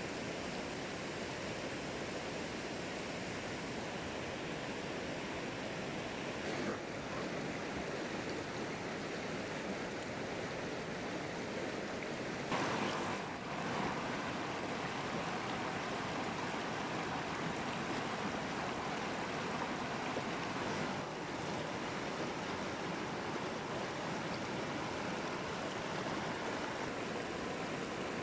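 Steady rush of flowing river water, an even noise with no rhythm, shifting slightly in texture a few times.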